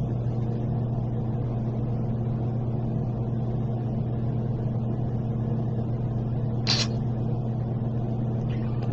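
A steady low electrical hum in the room, with a short rustle about seven seconds in.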